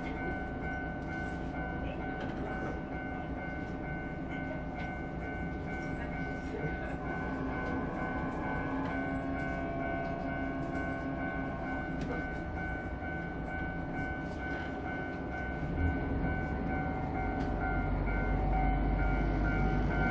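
KiHa 54 diesel railcar idling with a steady drone heard from inside its cab. Toward the end the engine note deepens and grows louder as the railcar starts to pull away.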